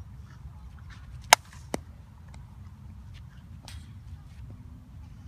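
A bat hitting a softball: one sharp crack a little over a second in, followed about half a second later by a second, weaker knock, over a steady low rumble of outdoor air.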